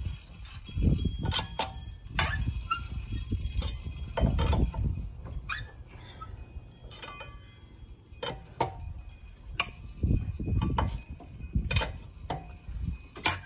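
Four-way cross lug wrench turning lug nuts on a van's alloy wheel, the steel bar clicking, rattling and ringing metallically as it is spun and shifted, at irregular intervals. Low rumbles come and go underneath.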